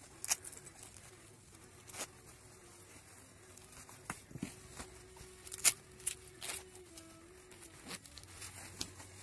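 Handling noise from a textile motorcycle jacket: fabric rustling with a scatter of short, sharp clicks and scrapes from its zippers and fasteners as it is folded and worked by hand.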